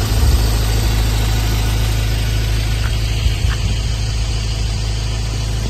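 Pickup truck engine idling steadily, a constant low rumble, under a broad even rush that fits the swollen floodwater flowing past the bridge.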